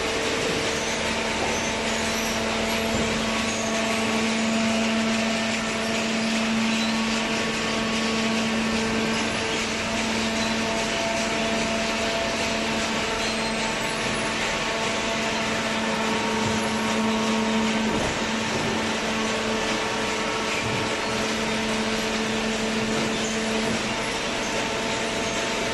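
Cardboard shredding and baling machinery running steadily: a continuous mechanical noise over a constant motor hum.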